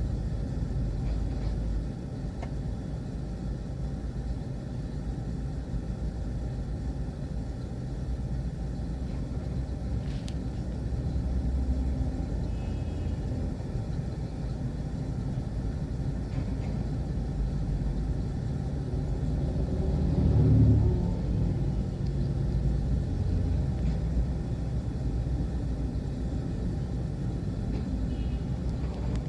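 Hydraulic excavator's diesel engine running steadily, with a brief surge in loudness about two-thirds of the way through.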